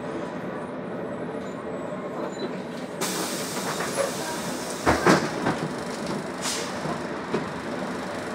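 Jelcz 120M city bus engine running steadily at a stop, heard from inside the passenger cabin. About three seconds in, a sudden hiss of compressed air starts as the pneumatic doors open. A few sharp clunks follow about two seconds later.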